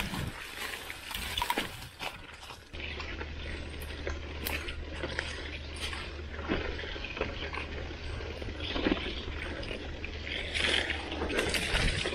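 Mountain bike ridden over a rough dirt singletrack: tyre noise on dirt and an irregular clatter of knocks and rattles from the bike over bumps. A steady low rumble sets in suddenly about three seconds in.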